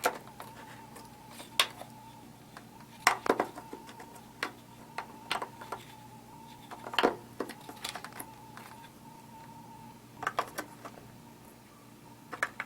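Hard plastic clicks and clatter of a tail light's bulb sockets and wiring-harness connectors being handled and plugged into the housing, a scattering of sharp clicks with a quick cluster about three seconds in, another about seven seconds in, and another just after ten seconds.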